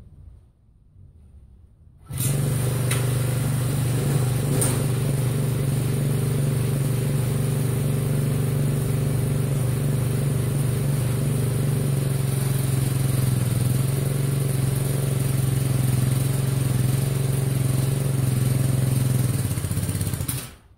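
Small lawn-tractor engine of three or four horsepower running steadily at a fast, even speed. It comes in suddenly about two seconds in and cuts off abruptly just before the end.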